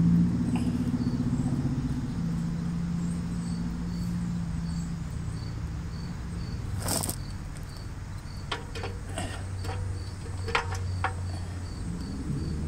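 A steady low mechanical hum of a motor running in the background, with an insect chirping at an even, regular pace. In the second half come a few sharp metal clinks and knocks as the gas tank and shroud assembly is handled and set onto the engine.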